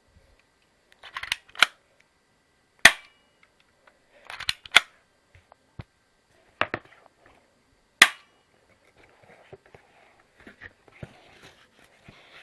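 A BB pistol being cocked and fired: a series of sharp snaps and clicks, some in close pairs, the loudest about three and eight seconds in. Softer handling noise follows near the end.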